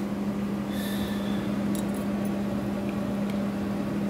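A steady low mechanical hum, like a running fan or appliance motor, with a few faint light clicks and clinks about one to two seconds in.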